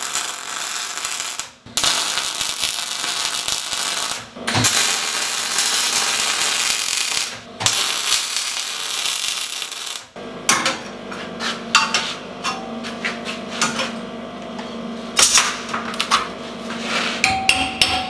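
MAG (gas-shielded wire-feed) welder arcing on steel with a dense crackling hiss, in three runs of about three seconds each, short pauses between them. From about ten seconds in, the arc stops and a string of sharp metal taps and knocks follows over a low steady hum.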